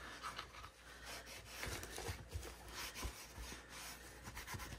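Cloth rag rubbing over a painted wooden shelf, wiping back antique wax in faint, irregular strokes.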